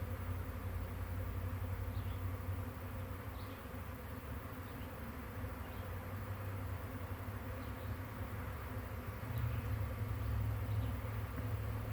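A swarm of honey bees buzzing: a steady drone of many wings that gets a little louder about nine seconds in.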